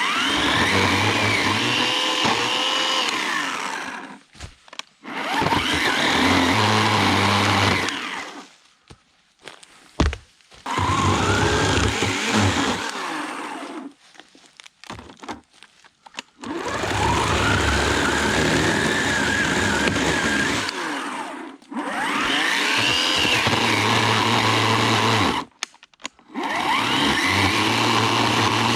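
Electric chainsaw cutting through a fallen tree in repeated bursts, about six in all. Each burst opens with the motor whine rising in pitch and then holding, and stops abruptly when the trigger is released.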